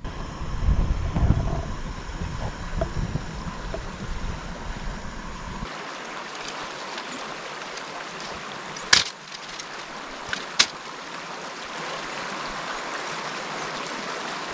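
A creek flowing, a steady rushing hiss. For the first five or six seconds a heavy low rumble sits under it, then cuts off abruptly. Two or three sharp clicks or knocks come about two-thirds of the way through.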